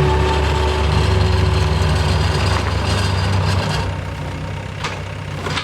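Skid steer loader engine running steadily, dropping to a lower, quieter run about four seconds in, with a couple of short clicks near the end.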